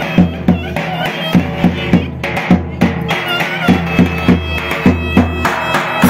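Turkish wedding music: a davul (large double-headed bass drum) beating a steady rhythm, about three strokes a second, with a clarinet playing a wavering melody over it.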